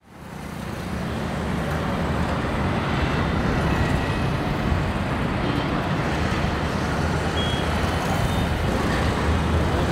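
Steady road traffic noise: cars and scooters passing with a low engine rumble, fading in over the first second.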